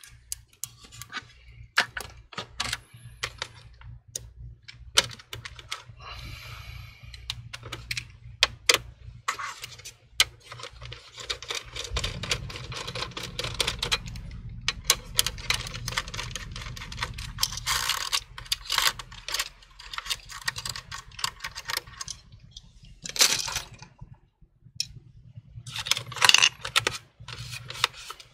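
Irregular clicks, taps and rattles of a precision screwdriver, small screws and plastic and metal parts being handled as the bare chassis of an all-in-one computer is taken apart. A faint low hum runs underneath and grows fuller about halfway through.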